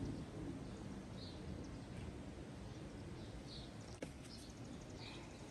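A bird chirping: short, high calls about once a second over a faint background hiss.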